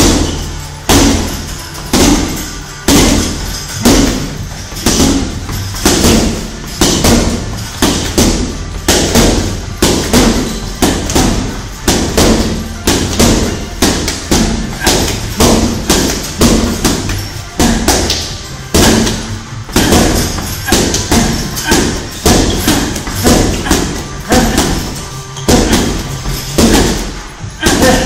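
Medicine ball thrown hard against a wall and a heavy punching bag over and over, a thud about every half second to second as it hits and is caught. Background music plays underneath.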